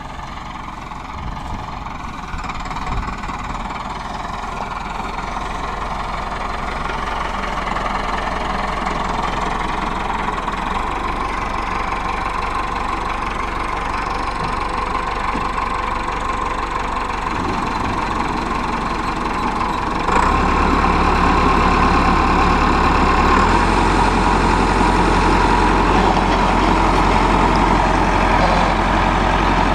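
Massey Ferguson 375 tractor's diesel engine running steadily, growing slowly louder and then stepping up in level twice, about two-thirds of the way in and again a few seconds later.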